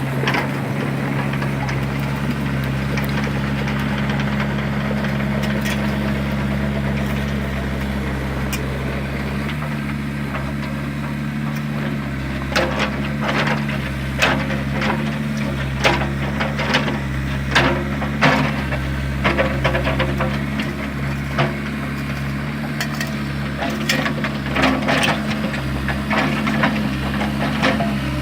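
Excavator's diesel engine running steadily, with sharp clanks and knocks of the bucket working in rocky soil, frequent from about halfway through.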